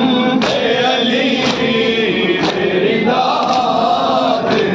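Male voices chanting a noha in chorus, with sharp strokes of matam, hands striking chests, landing about once a second.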